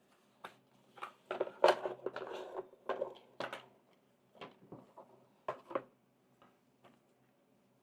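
Hands handling an unboxed docking station and its packaging: a run of light knocks and clicks, with a brief rustle of packing material about a second and a half in.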